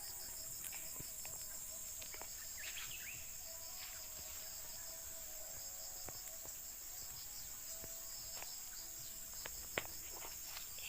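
Steady chorus of crickets and other insects, a continuous high pulsing shrill, with a few faint scattered clicks.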